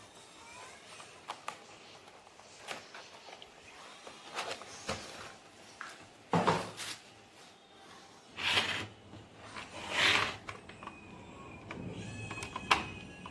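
Hands handling equipment: scattered light clicks and knocks, with three louder brief scrapes, each about half a second long, about 6, 8 and 10 seconds in.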